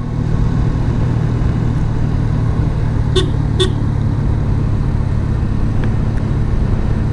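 A Yamaha FZS V3's single-cylinder engine running steadily while riding, with wind rush, and two short horn toots about three seconds in, half a second apart.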